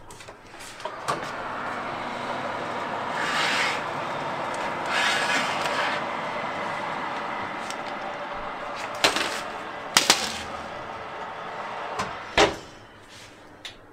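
A kitchen fan runs steadily as the hot oven is opened. Near the end there are a few sharp metal clicks and clatters, the last the loudest, as the baking tray on its wire rack is taken out and set down.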